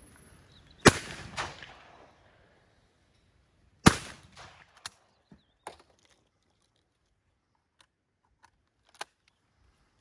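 Two shotgun shots about three seconds apart at a report pair of clay targets, each with a short fading echo. A few faint clicks follow as the gun is opened and reloaded.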